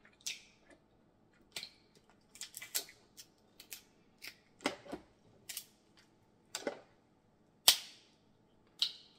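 Cooked snow crab legs being snapped apart by hand: a dozen or so irregular, sharp cracks and crunches of shell, the loudest shortly before the end.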